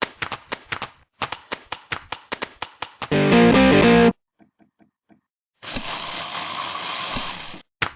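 A fast series of sharp clicks, about five a second, broken by a loud burst of music lasting about a second and, after a few faint ticks, a harsh noisy burst of about two seconds. Each burst starts and stops abruptly, like sound effects cut in.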